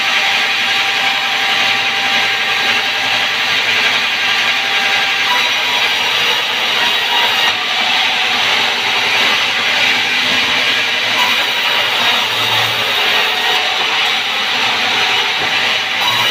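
Large vertical band saw ripping a log lengthwise as it is pushed by hand through the blade: a loud, steady sawing noise without a break.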